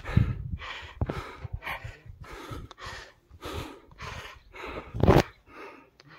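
Heavy panting close to the microphone, about two breaths a second, with one louder breath about five seconds in: breathlessness from a steep uphill climb.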